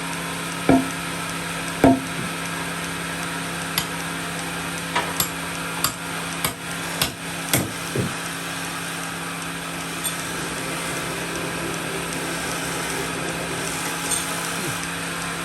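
A machine running with a steady hum, and about a dozen irregular knocks and thuds of wood being struck or handled. The two loudest knocks come about one and two seconds in, and a quick run of them follows a few seconds later.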